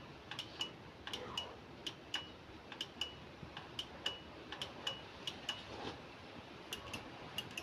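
Irregular sharp metallic clicks, about two to four a second, many followed by a brief high ring.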